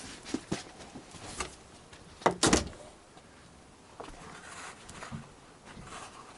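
Scattered light clicks and knocks of things being handled in a room, with a louder double knock a little over two seconds in.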